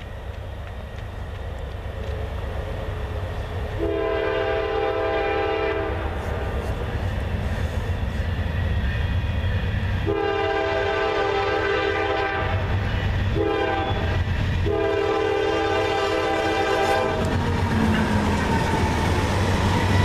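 Norfolk Southern diesel locomotive approaching with its engine rumble growing louder, sounding its multi-tone air horn in the grade-crossing pattern: two long blasts, a short one and a long one. Near the end the train passes close by with wheel noise.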